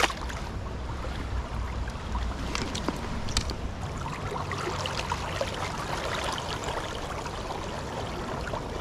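Steady rush and trickle of flowing river water, with a few small splashes or clicks, the sharpest about three and a half seconds in.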